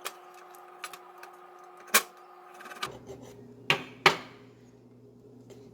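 A few sharp clicks and knocks of kitchen tools working on raw chicken wing bones while deboning them, the loudest two close together near the middle, over a faint steady hum.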